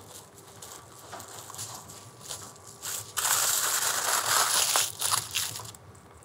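Aluminium foil crinkling as it is rolled tightly around a wrapped dumpling log and its ends are twisted shut. Soft rustles come first, then a loud crinkling for about two seconds from about halfway in, trailing off into a few crackles.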